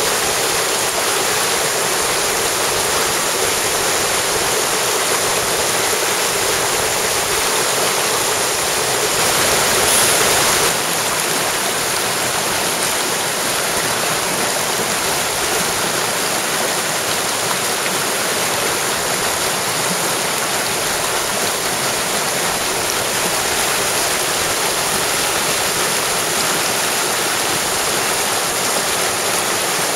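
Mountain stream water rushing steadily, briefly louder about a third of the way through.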